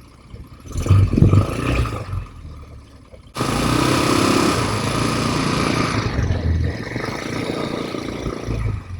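ATV engine running and revving under load, surging about a second in. A loud rush of noise cuts in suddenly about three seconds in and eases off after a few seconds.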